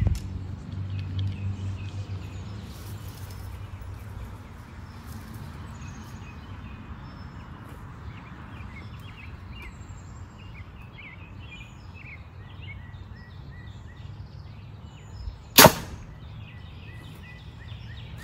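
A compound bow shot, heard as one sharp crack about fifteen seconds in: the arrow is released and driven through a paper-tuning sheet into the target.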